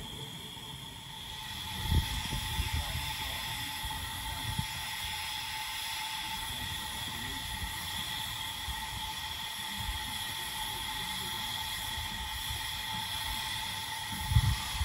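Narrow-gauge steam locomotive standing in steam, with a steady hiss of escaping steam that carries a faint whistling tone. There is a thud about two seconds in and two more near the end.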